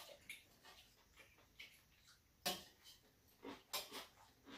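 Metal chopsticks clicking and tapping on a stainless steel bowl and tray: irregular light clicks, with the loudest clack about two and a half seconds in and a quick run of clicks near the end.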